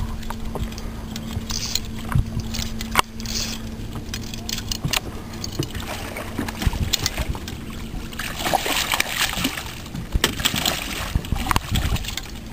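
Fishing boat while a striper is landed: scattered knocks and rattles of handling on the boat over a steady low hum that cuts off with a click about three seconds in, then a stretch of splashing, rushing noise from about eight seconds on.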